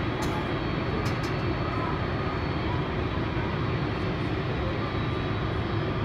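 Jet engines of an ANA twin-jet airliner running on the ground: a steady, even rumble with a thin high whine over it.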